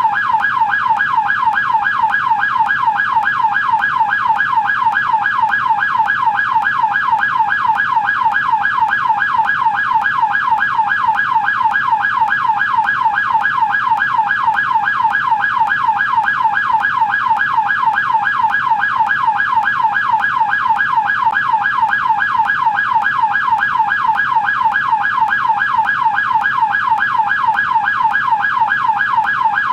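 American police siren on its yelp setting: a loud, steady, fast warble, the pitch sweeping up and down several times a second without a break.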